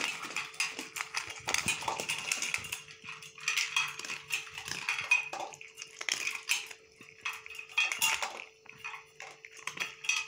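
Two dogs eating dry kibble from stainless steel bowls: irregular crunching and clinking of pellets and muzzles against the metal, under a faint steady hum.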